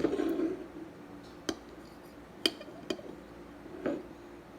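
Tableware being handled: a dish shifted on the table at the start, then four light clinks of a utensil against a bowl or glass.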